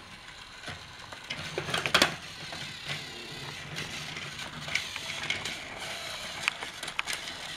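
Battery-powered Trackmaster toy engine being handled on plastic track: plastic clicks and clatter with its small motor whirring, and a sharp plastic knock about two seconds in.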